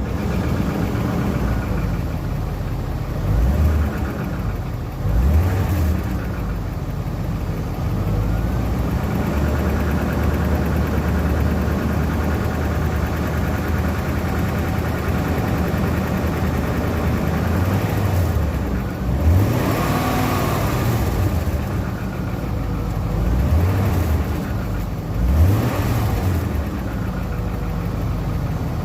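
1997 BMW 540i E39's 4.4-litre V8 idling and blipped several times, each rev rising and falling back to idle. The rattle noise this car has is what is being shown.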